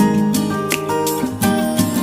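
Background music: acoustic guitar picking and strumming a tune.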